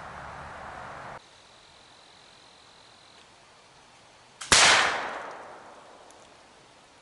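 A single shot from a .32 muzzleloading Kentucky rifle loaded with 25 grains of black powder, fired about 50 yards away: about four and a half seconds in, a sharp crack, with a faint snap a split second before it, that rings out and fades over about a second and a half.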